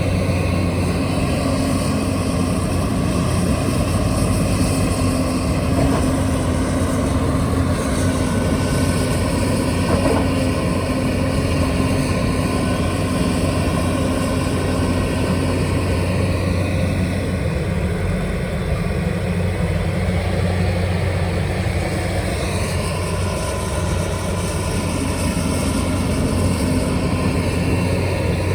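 Diesel engine of a heavy construction machine (excavator or backhoe loader) running steadily under work, with a constant low hum.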